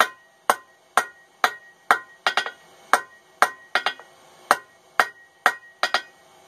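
Hand hammer striking hot mild steel bar stock on an anvil, about two blows a second, each ringing sharply; several blows are followed by a quick lighter rebound tap.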